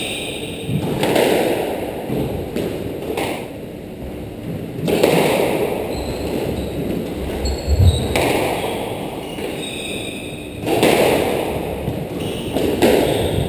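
Squash rally: the ball knocking off rackets and the court walls in repeated pings and thuds, with the players' footsteps on the wooden floor. One heavy thud comes about eight seconds in.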